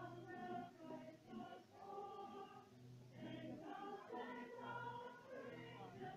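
Many voices singing a song together in long held notes, over a steady low accompaniment.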